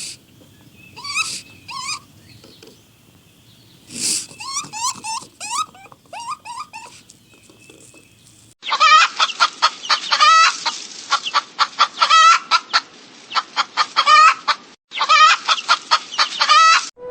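Bird-like animal calls: short calls that slide down in pitch, repeated every second or so. About eight and a half seconds in, this changes abruptly to a louder, denser run of rapid calls, several a second, with a brief break near the end.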